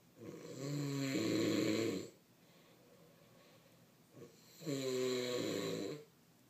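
A man snoring: two snores about four and a half seconds apart, each a little under two seconds long, with a short catch just before the second.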